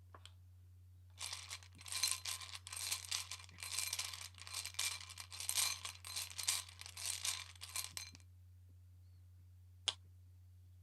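Tarot cards being shuffled in the hands, a dense crackling riffle for about seven seconds that stops abruptly, followed by a single sharp click. A steady low hum sits underneath.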